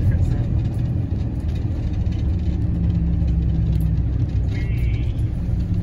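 Steady low rumble of engine and road noise heard from inside a moving vehicle, with a constant low hum as it drives along at an even speed.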